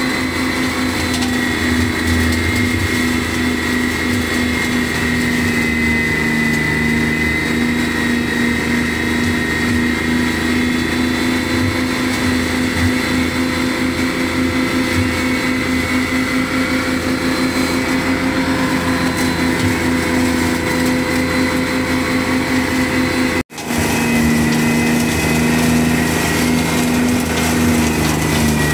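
Steiner 430 tractor engine running steadily at working speed, driving a Ventrac flail mower that is cutting through brush, with a steady high whine over the engine. The sound drops out for an instant about 23 seconds in and resumes unchanged.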